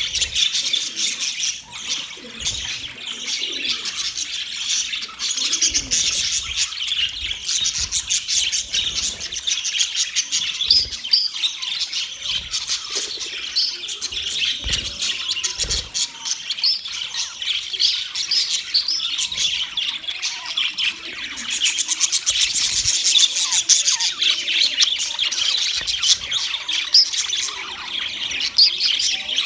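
A flock of budgerigars chattering and chirping continuously, many short overlapping warbles, chirps and squawks.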